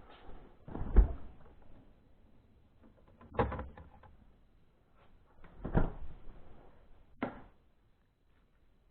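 Four separate knocks and clunks about two seconds apart, the loudest about a second in, from kitchen handling while an egg is added to the dough.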